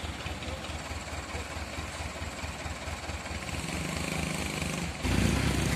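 Loaded palm-fruit truck's diesel engine running steadily with a fast low flutter as the truck works in deep mud, getting louder about five seconds in.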